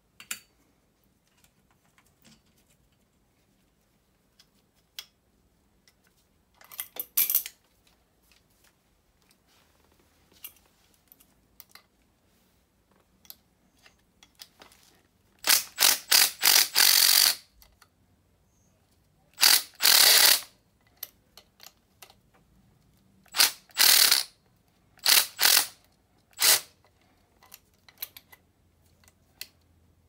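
Ratchet wrench and cordless driver working the mounting-clamp bolt on a replacement blower motor: about six short bursts of rapid mechanical clicking, the longest lasting about two seconds.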